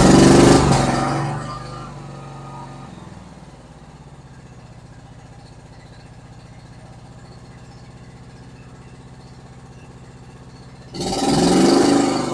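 Kawasaki V-twin engine of a John Deere Z465 zero-turn mower, just started, running fast and then slowing to a steady idle within the first few seconds; about eleven seconds in it is revved up briefly and drops back. With the carburetor freshly cleaned it runs well on both cylinders, as a twin should, no longer on one.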